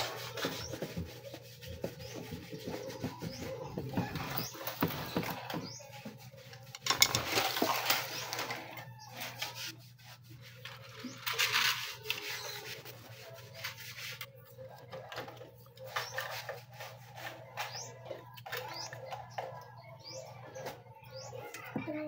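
Hand tools and fingers working on a washing machine's power cord and its entry grommet: rubbing and scraping with scattered clicks and knocks, loudest about seven and again about eleven seconds in.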